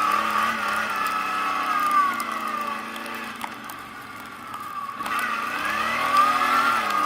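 ATV engine running under way in snow: it eases off with a falling pitch about two seconds in, runs quieter for a couple of seconds, then revs back up with a rising pitch near the end.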